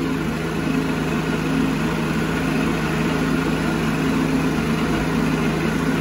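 A portable circular sawmill's gasoline engine, retrofitted from a Volkswagen, running at a steady speed with no cut being made.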